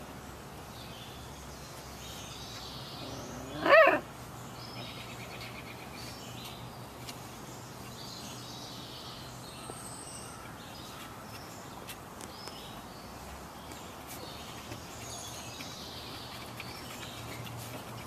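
A Samoyed puppy gives a single short, high yelp about four seconds in, over a steady low background.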